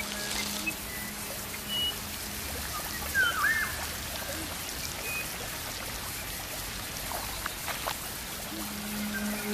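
Gently running stream water, a soft steady trickle, with a brief chirp about three seconds in. Background music drops away at the start and comes back near the end.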